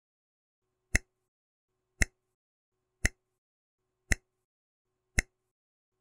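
Countdown timer ticking: five short, sharp clicks, one a second, starting about a second in.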